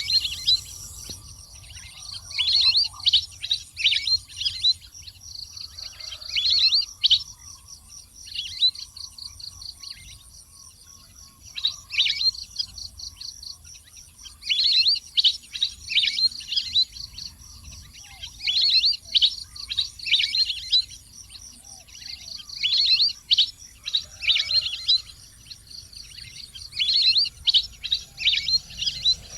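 Wild ducks calling in repeated bursts of quick, high, falling whistled notes, with short pauses between bursts.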